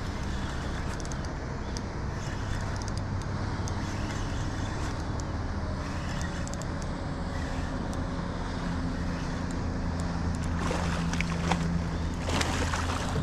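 Small boat's motor running with a steady low hum while a fish is fought on rod and reel. From about ten seconds in, the hooked fish splashes at the surface beside the boat.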